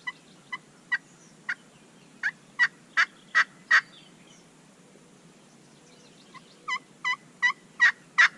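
Two series of turkey yelps: about nine short notes growing louder over the first four seconds, then after a pause about seven more, again building in loudness.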